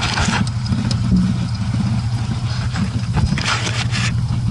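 IZh 21251 Kombi car engine running steadily at idle, with two short bursts of hiss, one at the start and one near the end.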